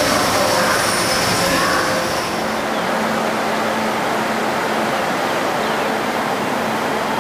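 Disneyland Resort Line train running past along the platform, with a whine of motors over track noise. About two seconds in this gives way to a steady rushing noise.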